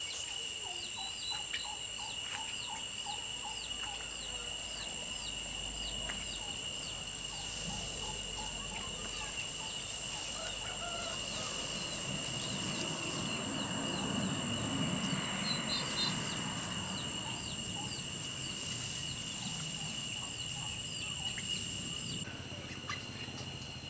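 Rural outdoor ambience: a steady high-pitched insect drone, a bird chirping over and over, and chickens clucking. A swell of rustling comes around the middle, and the drone stops shortly before the end.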